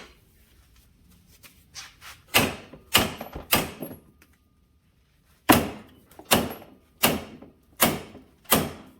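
Repeated heavy knocks, as from hammer blows on metal: a few about two and a half seconds in, then five evenly spaced strikes from about halfway through.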